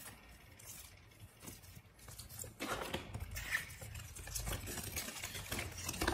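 Paper rustling and crackling as a folded instruction leaflet is handled and opened out; nearly silent at first, with irregular small crackles starting about two and a half seconds in.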